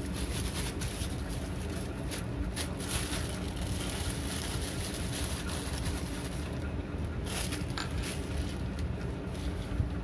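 A plastic bag rustling and crinkling in bursts as raw peanuts are handled and taken out of it, over a steady low background hum.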